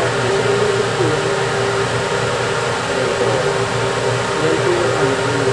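A fan running with a steady whir and a constant hum underneath.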